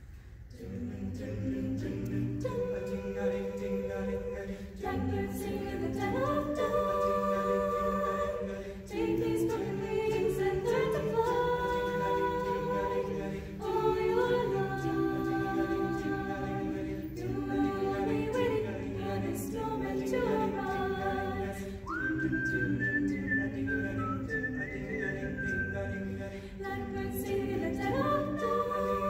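Mixed choir of male and female voices singing a cappella in close harmony, with a low sustained part under moving upper lines; the singing begins about half a second in.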